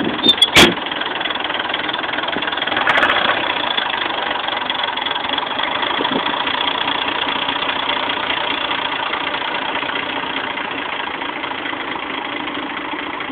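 Red Massey Ferguson tractor's engine running steadily at low revs, briefly louder about three seconds in. A couple of sharp knocks come in the first second.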